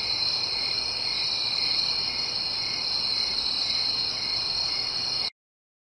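Steady, high chirring of crickets as a night ambience, cutting off suddenly near the end.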